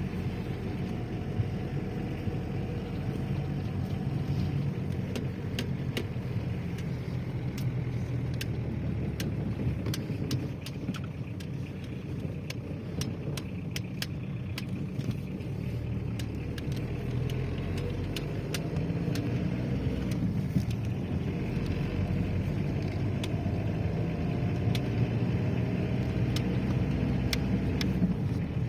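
Steady low engine and road noise of a car on the move, with scattered light clicks and rattles.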